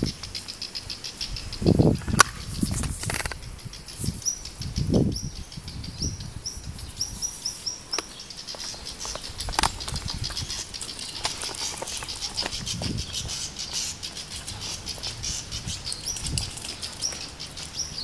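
A bird calling at a dog in a rapid, steady series of short, high chirps, scolding it in alarm. A few low thumps sound in the first few seconds.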